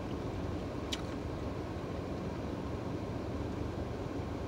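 Steady low rumble of a car's cabin background noise, with one faint click about a second in.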